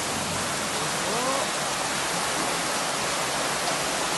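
Heavy downpour and floodwater pouring in through a doorway, a steady rush of water.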